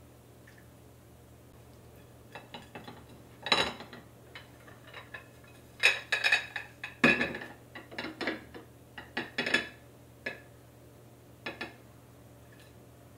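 Dishes and cutlery being handled, clinking and knocking together in an irregular string of sharp clinks, some ringing briefly. The clinks start about two seconds in and are loudest in the middle.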